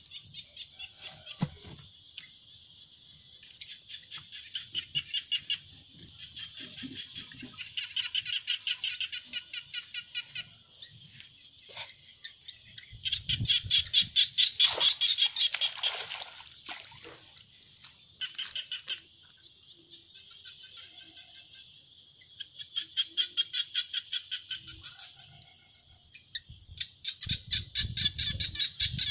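An animal's call in repeated trains of rapid high chirps, about eight to ten a second, each train lasting one to two seconds and coming every few seconds. A few low thumps come around the middle and near the end.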